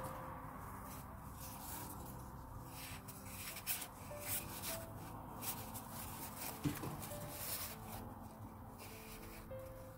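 Satin ribbon rustling and rubbing in short strokes as it is wrapped by hand around a tube, with a light tap about two-thirds of the way through.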